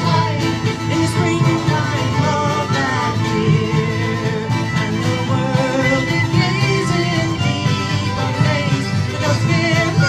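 Live Irish folk band playing a traditional tune: fiddle and whistle carrying the melody over strummed acoustic guitar, mandolin, electric bass and bodhrán.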